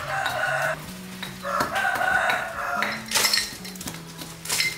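A rooster crowing twice in the first few seconds, then two sharp knocks of cleaver and vegetable pieces against a metal basin near the end, over soft background music.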